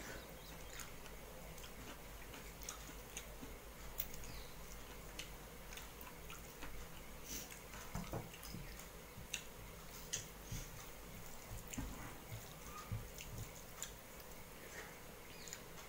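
A person eating rice by hand from a steel plate: irregular small clicks and taps of fingers and food on the plate, with chewing and mouth sounds in between.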